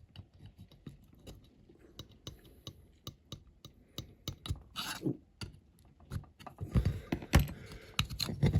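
Scattered small clicks, taps and light scrapes of a hand tool and small parts being handled against a diecast model car, growing busier and louder in the last couple of seconds.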